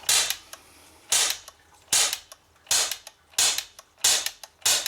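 Cybergun FN Herstal M4 BB gun firing .177 (4.5 mm) steel BBs in semi-auto, seven quick shots in a row, about one every 0.7 seconds. Each shot is a short, sharp report.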